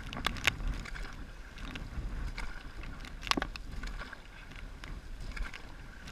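Dragon boat paddles dipping and splashing in the water, with irregular sharp splashes and knocks over a low wind rumble on the microphone.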